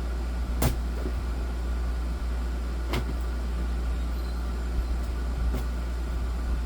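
A flathead screwdriver pushed through the packing tape on a cardboard box, making three sharp clicks a couple of seconds apart, over a steady low hum.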